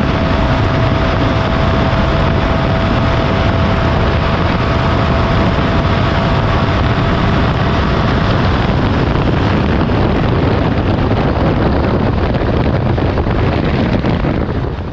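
BMW R-series GS boxer-twin motorcycle at high speed, with engine and heavy wind noise steady on the bike-mounted microphone. A steady whine holds through the first part and fades out about nine seconds in. The whole sound fades out right at the end.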